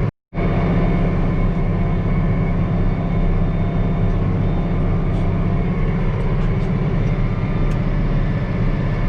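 Case IH tractor's diesel engine running steadily under load as it pulls a disc lightly through the soil, with a brief dropout in the sound right at the start.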